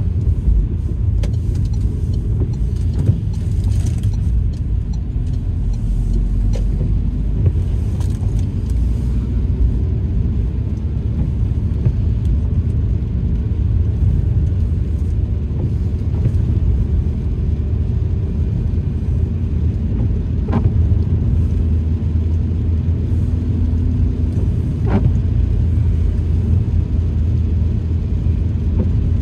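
A car driving along a road, giving a steady low rumble of engine and tyres. Two short clicks come in the last third.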